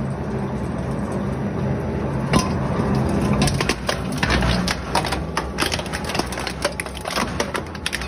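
Industrial shredder running with a steady hum while a steel gas cylinder rolls on its hooked cutter discs. A clank comes about two seconds in, then from about three seconds a rapid, irregular run of cracks and crunches as the blades bite into and tear the cylinder's metal.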